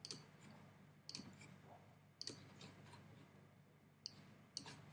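Faint computer mouse clicks, about five sharp clicks spread a second or so apart, some heard as a quick press-and-release pair, over a low hum.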